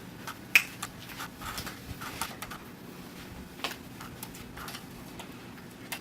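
Golden retriever puppies giving small squeaks among scattered short clicks and knocks, the sharpest squeak about half a second in.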